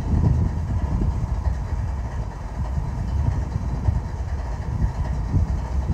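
Diesel-electric freight locomotives idling: a steady low rumble.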